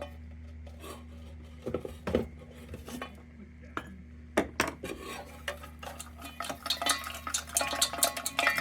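Metal pliers clinking and scraping inside a lantern's tin fount, with scattered sharp clicks that turn into a dense, rapid metallic rattle in the last couple of seconds. A steady low hum runs underneath.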